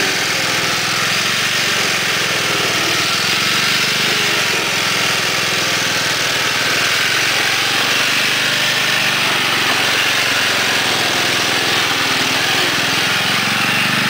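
Lawn tractor engine, the 11 hp Briggs & Stratton in a modified John Deere Sabre riding mower, running steadily.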